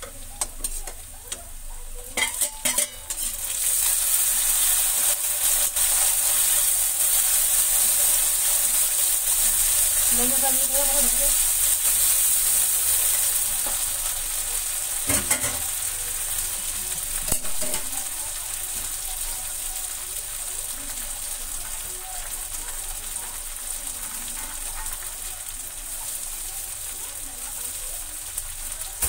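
Chopped onions and vegetables frying in oil in an iron kadai, with a metal spatula scraping and knocking against the pan. In the first few seconds there are a few sharp spatula clicks; then the sizzle jumps up loudly and eases to a steadier, softer sizzle about halfway through.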